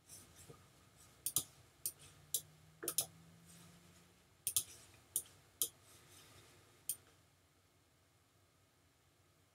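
Computer mouse buttons clicking, about ten sharp clicks, some in quick pairs like double-clicks, over the first seven seconds, then stopping.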